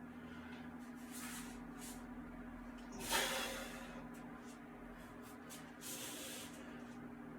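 A person breathing hard through exertion: several short, hissing breaths, the loudest about three seconds in, over a steady low hum.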